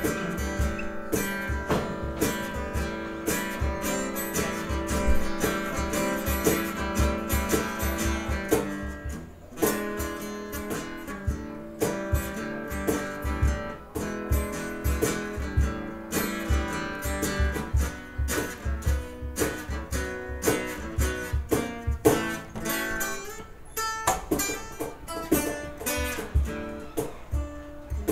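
Live band playing an instrumental passage, guitar to the fore over a steady beat.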